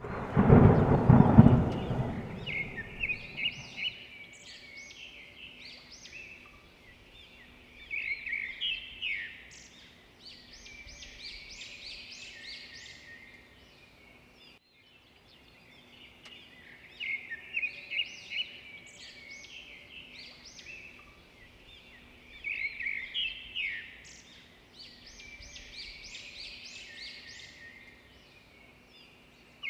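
A looped nature-ambience recording of birds chirping and trilling in clusters, opening with a loud low rumble that fades over a few seconds; the same stretch of birdsong repeats about halfway through.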